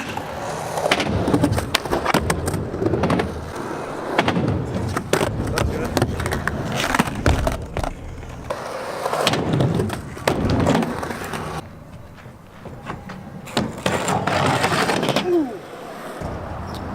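Skateboard wheels rolling, with many sharp clacks and slaps of the board hitting the ground as tricks are tried.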